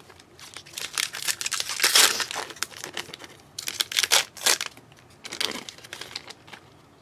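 Trading card pack wrapper crinkling and tearing as it is ripped open by hand, in several crackly spells.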